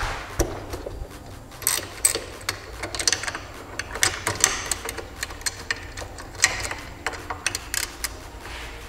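Small hand ratchet clicking in short bursts as it loosens 12 mm bolts on a shift-fork pivot inside a manual transmission, with light clinks of the socket against the metal.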